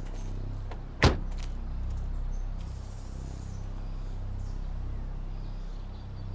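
A Peugeot 504's door slamming shut once, about a second in, over a low steady hum.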